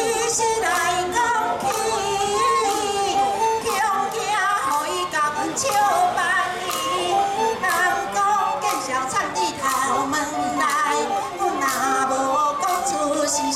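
Taiwanese gezai opera song: a woman sings a wavering, ornamented melody over traditional instrumental accompaniment, with sharp percussion strikes throughout.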